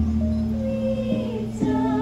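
A voice chanting a slow, wavering melody over a steady held tone, the sung line stepping up in pitch about a second and a half in.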